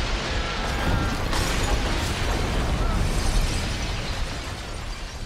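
Movie action sound effects: loud crashing and explosion-like destruction with a heavy low rumble, fading out near the end.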